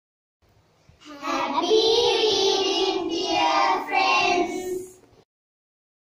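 A short sung jingle in a child's voice, held notes in about three phrases, starting about a second in and stopping about a second before the end.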